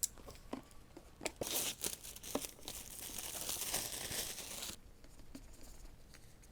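Plastic wrapping crinkling and tearing as a retail box is unwrapped. A few sharp crackles come first, then a steady run of crinkling that stops abruptly a little under five seconds in.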